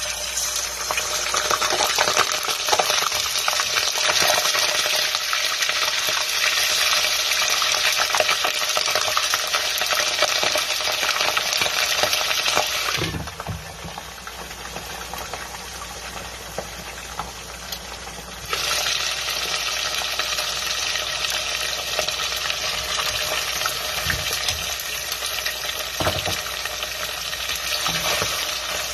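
Salmon pieces frying in hot oil in a nonstick pot: a loud sizzle starts suddenly as the fish goes in. It drops and turns muffled for about five seconds while a glass lid covers the pot, then comes back when the lid is lifted, with a few knocks as the pieces are turned.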